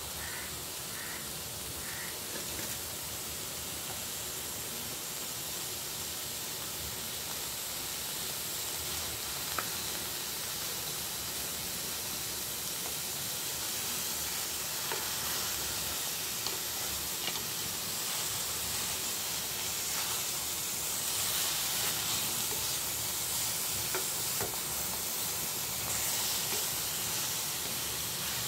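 Chopped vegetables and butter sizzling in an aluminium pot: a steady hiss that slowly grows louder, with a few faint pops.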